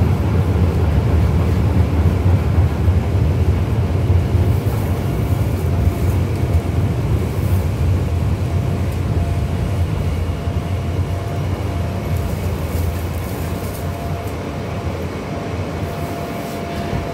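Interior running noise of an R160 New York subway car: the steady rumble of wheels on rail and running gear. It eases off gradually over the last several seconds as the train slows for its next stop, with a faint steady whine coming up near the end.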